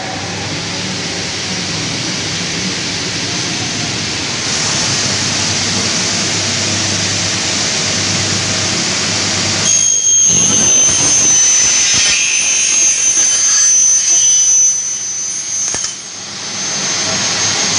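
Blade motors of a double-head aluminium cutting saw running at speed. About ten seconds in, the saw blades cut through an aluminium profile at 45 degrees with a high, steady whine for about six seconds.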